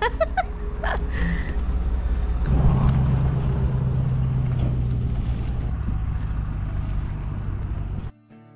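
Low rumble of wind on the microphone with the steady hum of a motor running, strongest from about two and a half seconds in. Near the end it cuts off abruptly into acoustic guitar music.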